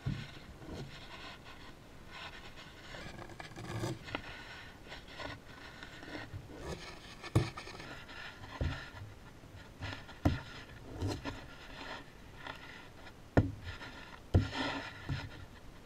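A deck of playing cards being shuffled and handled on a felt table: stretches of cards riffling and sliding against each other, broken by several sharp taps as the deck is squared and set down.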